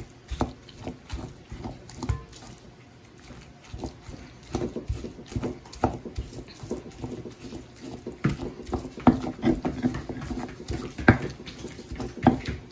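Stone pestle grinding and mashing roasted jalapeño peppers in a volcanic-stone molcajete: irregular knocks and scrapes of stone on stone, several a second, busier from about halfway through.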